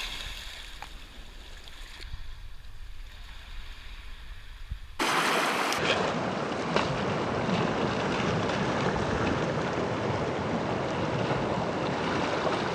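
A faint low rumble, then suddenly, about five seconds in, loud steady wind and rushing water noise.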